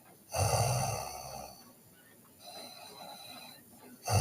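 A sleeping high-school girl snoring: a loud rasping snore on the in-breath about a third of a second in, lasting about a second, then a softer breath out, and the next snore beginning right at the end.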